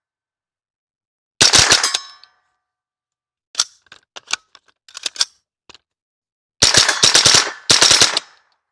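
A .22LR AR-15 rifle firing in quick bursts: a close group of shots about one and a half seconds in, faint clicks in between, then a run of rapid shots in two groups near the end. The rifle is firing twice per trigger pull because its trigger pins have walked in, turning it into a binary trigger.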